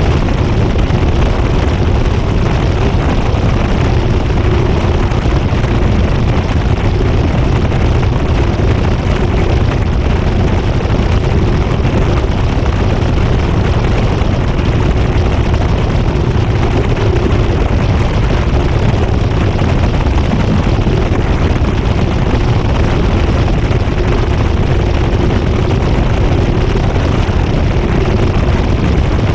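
GE GTW220ACKWW top-loading washer in its high-speed spin, heard from inside the drum by a camera fixed to the agitator: a loud, steady rumble with a constant motor hum and no agitation strokes.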